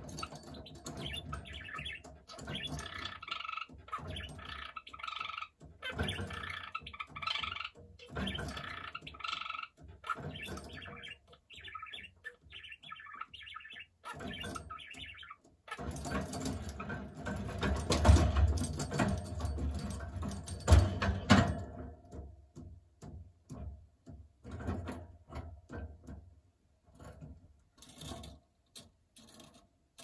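Budgerigar warbling, a fast run of chattering chirps and squeaks. After about fifteen seconds it gives way to the bird knocking its hanging wooden-bead toy about, with the toy's metal bell rattling. The last part is a string of light taps and clicks.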